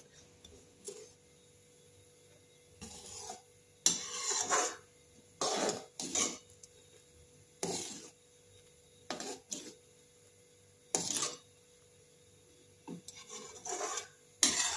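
A spatula scraping and stirring around the bottom of a metal kadhai of simmering milk kheer, in short separate strokes a second or two apart.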